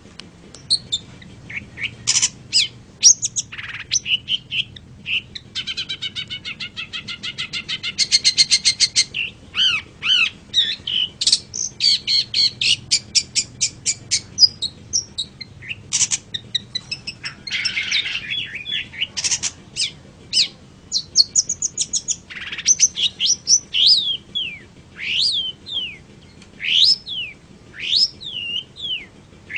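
Long-tailed shrike (burung pentet) singing a varied, busy song of chattering calls and a fast run of repeated notes, with a harsh rasping note about halfway and sharp falling whistles in the last third.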